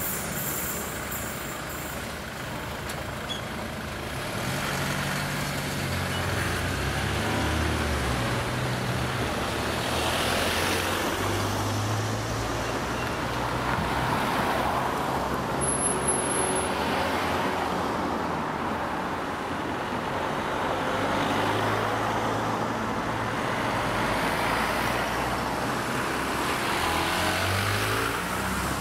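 Cars and a van driving past one after another, the engine and tyre noise swelling as each one goes by.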